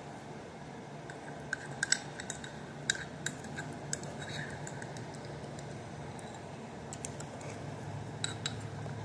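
A spoon clinking and tapping against a small baby-food container: a cluster of light clicks from about one and a half to four seconds in, and a few more near the end. A steady low hum runs underneath.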